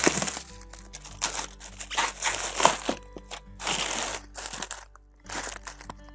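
Plastic bubble wrap and mailer packaging crinkling in irregular bursts as it is pulled off a smartphone's cardboard retail box by hand, with a short pause near the end.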